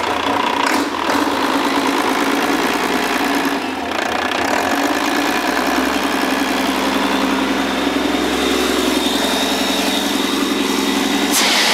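International DT466 inline-six turbodiesel running steadily at high RPM, set to mimic a runaway. Near the end a CO2 fire extinguisher starts blasting into the turbocharger's compressor intake with a loud hiss, to starve the engine of oxygen and shut it down.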